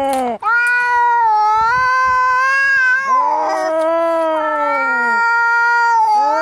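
Angry cats caterwauling in a fight: long, drawn-out yowls that waver and bend in pitch. A fresh yowl starts about every three seconds, and one voice sometimes rises while another is still trailing off.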